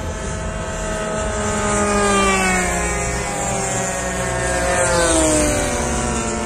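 Engines of several radio-controlled model warplanes buzzing overhead, with two close passes whose pitch falls as they go by, about two seconds in and again about five seconds in.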